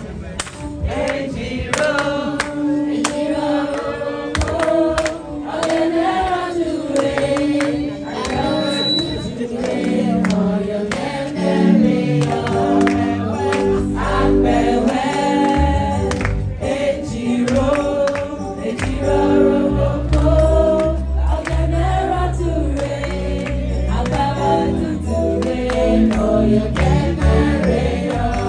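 Group of voices singing a gospel song together with instrumental backing and a steady beat; a deep bass comes in about halfway through.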